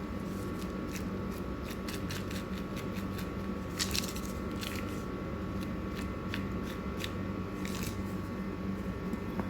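Garlic powder being tapped and shaken out of its container onto raw chicken strips: a scatter of light irregular clicks and taps, a few louder ones near the middle and towards the end, over a steady appliance hum.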